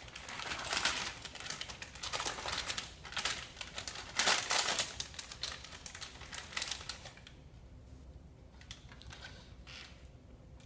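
Small wrapper crinkling and rustling as it is unwrapped by hand, in quick irregular bursts, loudest about four seconds in, then thinning to a few faint rustles near the end.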